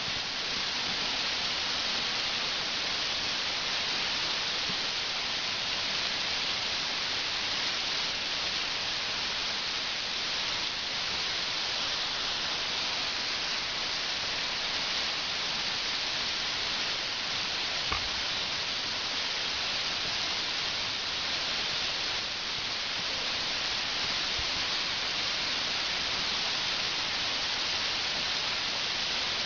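Steady rushing hiss of a waterfall, unchanging throughout, with a single faint tap past the middle.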